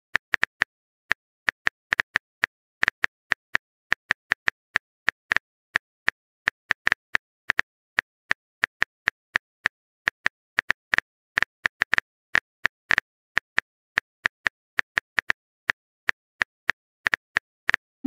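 Irregular keyboard tapping clicks, a few per second: the typing sound effect of a texting-story app while a message is typed out.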